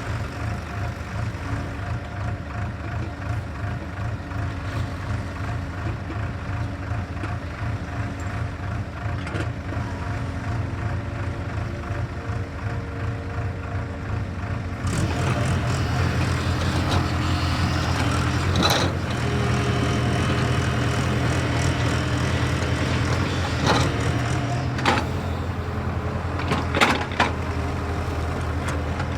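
JCB excavator's diesel engine running steadily. About halfway through it gets louder, as if revving or under load, and several sharp knocks stand out in the second half.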